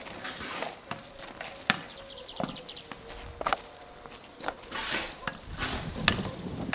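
A ball being hit back and forth with plastic paddle rackets: several sharp knocks, irregularly spaced, with feet scuffing and crunching on gravel between them.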